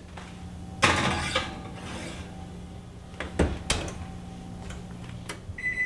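Oven door being handled: a short rush of noise about a second in, then two sharp clacks a third of a second apart. Near the end the oven's timer starts a steady high beep, signalling that the baking time is up.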